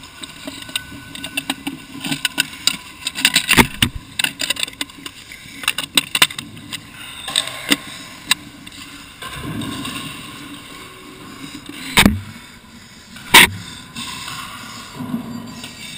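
Handling noise on the recording: close rustling and a rapid scatter of small clicks and scrapes, then two loud knocks about twelve and thirteen and a half seconds in.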